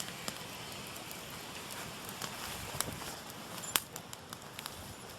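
Campfire of burning logs: a steady hiss of flames with irregular crackles and pops from the wood, one sharper pop about three quarters of the way through.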